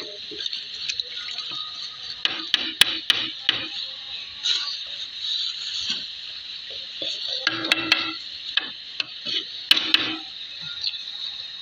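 Kitchen clatter: dishes and utensils clinking and knocking a few times over a steady high hiss.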